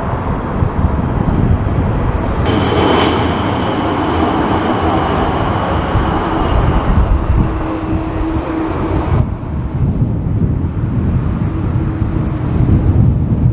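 Boeing 747 freighters' jet engines on final approach and landing, with a deep gusty rumble of wind on the microphone. The sound changes abruptly about two and a half seconds in, when a steady high engine whine joins the rumble for a few seconds, and again near the nine-second mark.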